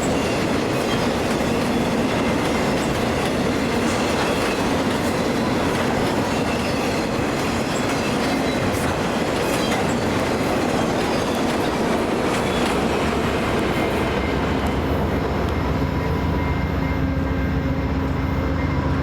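A train's cars rolling past, their wheels clicking over the rail joints with a little wheel squeal. About fourteen seconds in the rolling noise eases off and a steady low hum with a few faint tones takes over.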